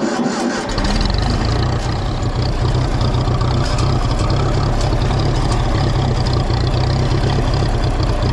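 Vintage Ferguson TEA tractor's four-cylinder engine running steadily just after starting, its low note getting stronger about a second in.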